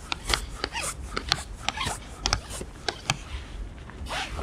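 Irregular sharp clicks and rubbing as a landing net is worked in the water to net a small zander, with a brief rush of noise near the end. Low wind rumble runs underneath.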